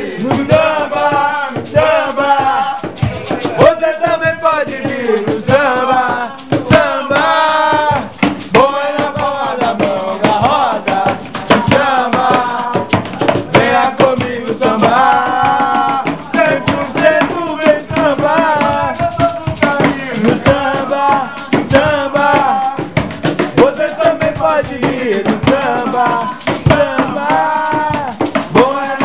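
Group singing samba live with steady hand percussion, the voices carrying on without a break.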